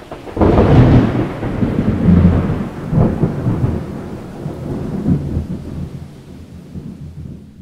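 Thunder: a sudden loud clap about half a second in, then a long low rumble that swells a few more times and slowly fades away.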